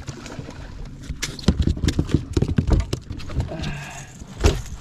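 A landed striped bass flopping on a boat's carpeted deck: a quick, irregular run of thumps and slaps, densest between about one and three seconds in, then a single sharp knock near the end.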